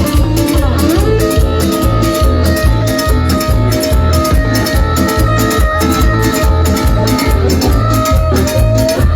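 Live cumbia band playing an instrumental passage: a steady bass-and-drum beat about twice a second under ticking percussion, with a held melody line from guitar or keyboard.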